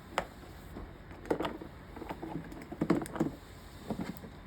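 Hard plastic clicks and rattles from handling a car's master window switch and its wiring connectors while they are being fitted, with several sharp clicks at uneven intervals.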